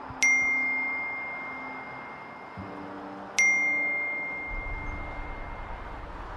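Phone text-message alert sounding twice, about three seconds apart, each a single bright ding that rings on and fades slowly, signalling an incoming message.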